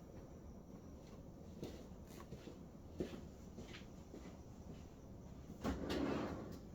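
A few faint knocks and clicks of metal parts and tools being handled on a workbench, then a short louder rush of noise about five and a half seconds in.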